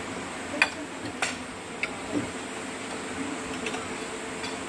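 Forks and spoons clinking against plates as people eat noodles: about three sharp clinks in the first two seconds, then a couple of fainter ones near the end.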